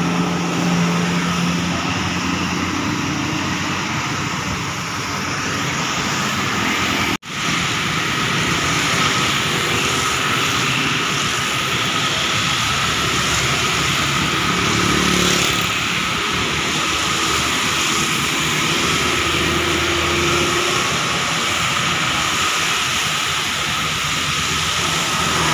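Steady highway traffic on a rain-wet road: tyres hissing on wet asphalt, with the engine hum of a passing coach fading away at the start and more coaches, cars and motorbikes going by. The sound cuts out for an instant about seven seconds in.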